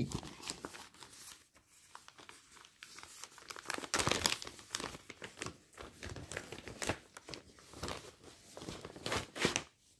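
Clear plastic sleeve of a cross-stitch kit crinkling and rustling as it is handled and turned over, in irregular crackles that get busier and louder about four seconds in.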